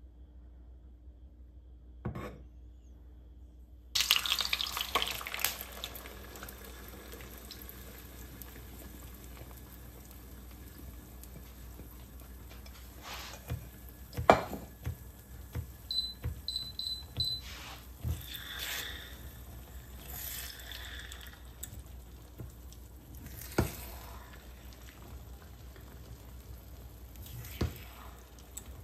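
Kitchen work sounds: a steady hiss that starts suddenly about four seconds in, with scattered knocks and clatters of utensils and dishes and a few short high beeps in the middle.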